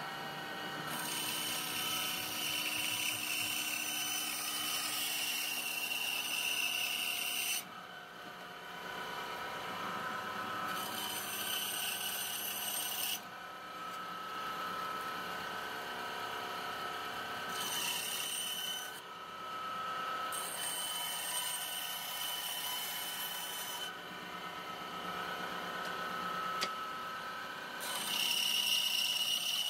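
9-inch benchtop band saw running and cutting a curve in a wooden board: a steady motor hum, with the hiss of the blade in the wood coming and going in several separate cuts as the board is fed and turned.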